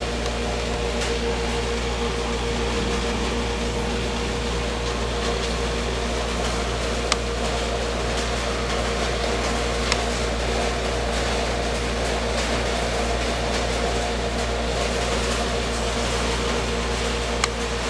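Steady electrical hum with an even hiss over it, broken by three single sharp clicks spread across it.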